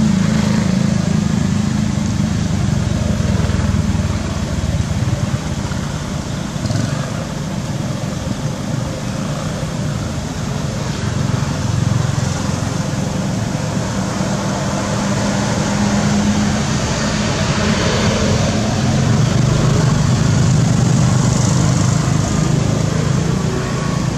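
A small engine running steadily: a constant drone with a hiss over it, easing a little midway and growing a bit louder again near the end.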